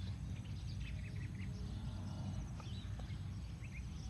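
Small birds chirping now and then over a low steady rumble.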